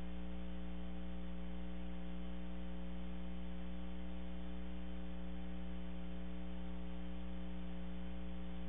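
Steady electrical mains hum with a faint hiss, unchanging throughout, and no other sound.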